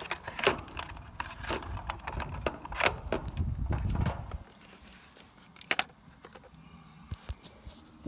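Handling noise as megohmmeter test leads are pulled out and clipped on: scattered clicks and rustles over a low rumble that stops about four and a half seconds in, then a few isolated clicks.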